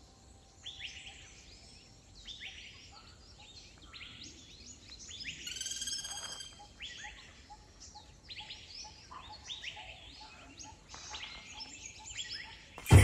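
Forest birds calling in the early-morning chorus: many short, repeated falling whistled notes from several birds, and one louder, richer call about six seconds in. A sudden loud thump comes at the very end.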